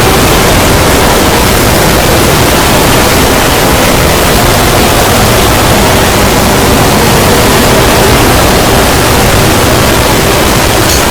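Loud, steady, harsh static-like noise that fills every pitch evenly and does not let up.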